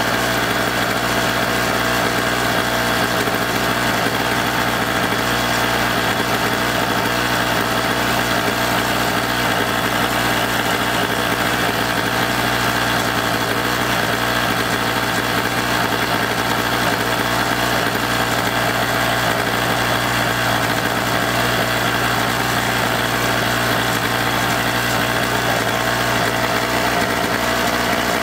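Storm Cat 800-watt 63cc two-stroke portable generator engine running steadily at a constant speed.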